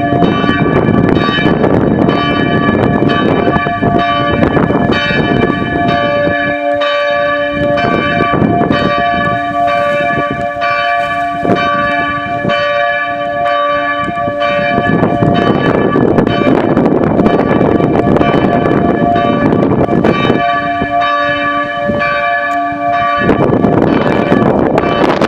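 Several church bells swinging and ringing together in a peal, loud, their strokes overlapping quickly and unevenly as each bell keeps sounding; the noon ringing.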